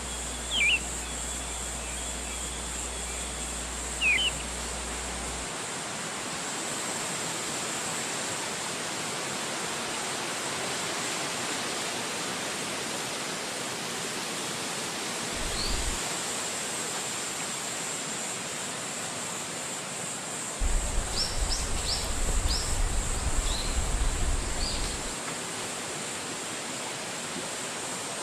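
Steady wind rushing through forest trees, with a high hiss throughout. Short bird chirps come twice near the start and in a quick run later on, alongside a low rumble.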